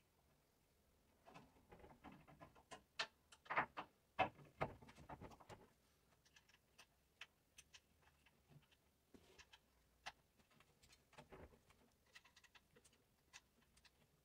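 Small metallic clicks and taps as a hex key works the set screws of a chrome shower-door handle against its glass door. A busier, louder run of clicks in the first few seconds, then only scattered single ticks.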